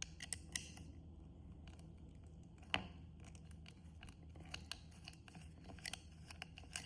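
Faint scattered clicks and ticks of a small screw being unscrewed and plastic mount parts being handled, with one sharper click about three seconds in.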